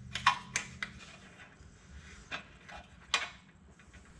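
Scattered sharp metallic clicks and clinks of hand tools and exhaust hardware being fitted to a motorcycle, a few irregular strikes with the loudest near the start and about three seconds in.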